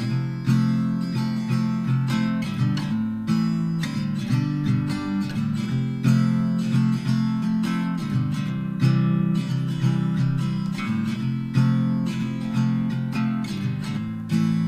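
Background music: strummed and plucked acoustic guitar with chords changing every second or so.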